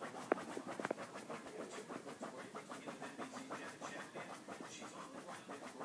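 A dog gnawing on a bone: a rapid run of scraping, rasping strokes, with a few sharp clicks of teeth on bone in the first second.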